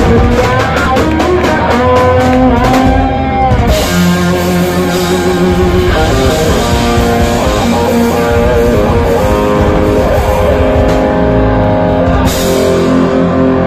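Live rock band playing loud: electric guitars holding sustained notes over a drum kit. Quick, even drum strikes open the passage, then crashing cymbals ring over the held guitar notes from about four seconds in, easing off and crashing again near the end.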